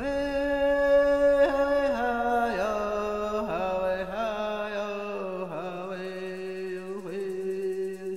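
A single voice singing long held notes in a slow chant-like line, stepping down in pitch with brief wavering slides between the notes.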